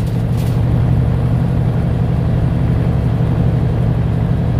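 Semi truck's diesel engine and road noise droning steadily inside the cab while cruising on the highway.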